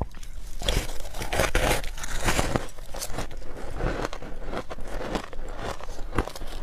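Close-miked crunching of hard ice frozen with passion fruit pulp, bitten off and chewed. It is a rapid run of sharp cracks, densest in the first half, then fewer and more scattered crunches.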